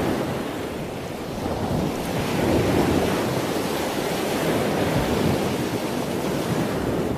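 Ocean surf: waves washing up and drawing back, rising and falling in slow swells every two to three seconds.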